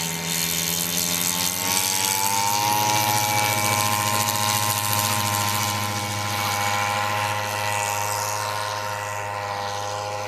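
Giant-scale RC model biplane's engine at takeoff power, its pitch rising over the first two seconds as the throttle opens. It then holds a steady high drone as the plane lifts off and climbs away, growing slightly fainter and lower near the end.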